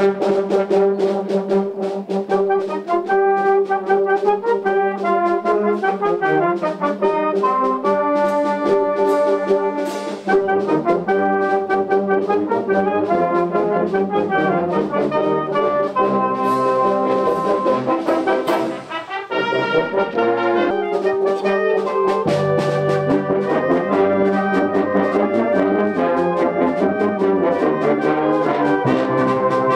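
A wind band of brass, saxophones and drums plays a piece of music, with a steady drum beat under the chords. The band drops out briefly about 19 seconds in, then comes back in full.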